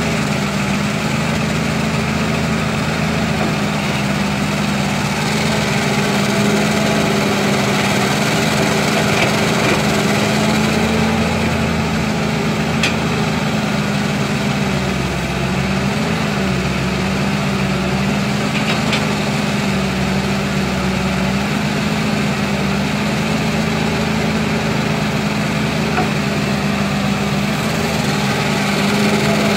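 Diesel engine of a hydraulic excavator running steadily while it works, dipping briefly in pitch about halfway through as it takes load, with a couple of faint knocks.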